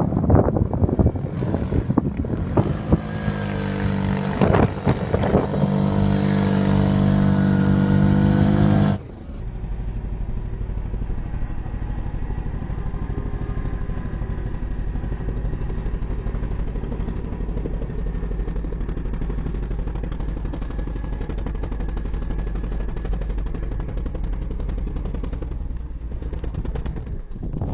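Arctic Cat 1000 XT's engine running: for the first nine seconds it revs, its pitch rising and falling, then after a sudden cut it settles into a steadier, duller running.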